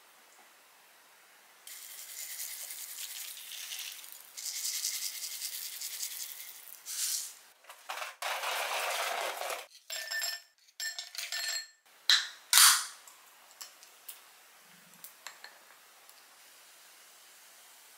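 Carbonated milk soda poured from a can over ice into a glass: a crackling fizz, then a fuller pouring rush. After that come several ringing clinks of ice against the glass and two sharp knocks, then a few faint ticks.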